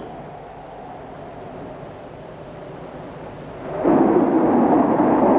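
Wind of a desert sandstorm: a low rushing noise that suddenly rises about four seconds in to a loud, steady roar.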